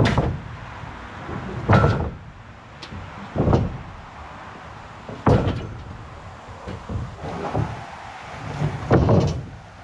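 Rough-cut lumber boards knocking and thudding as they are slid and set down on a trailer's stack of boards: about six sharp wooden knocks spread every second or two.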